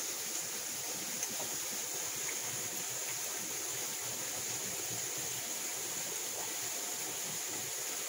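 Steady rushing of water running behind a frozen waterfall's curtain of ice, with one or two faint ticks.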